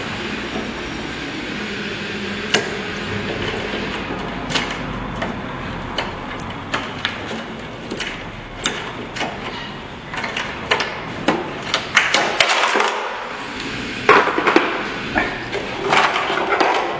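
Needle-nose pliers and small metal parts being handled at an electric scooter's handlebar: scattered sharp clicks and ticks over a steady background hiss. The clicking grows busier, with rattling and scraping, in the last few seconds.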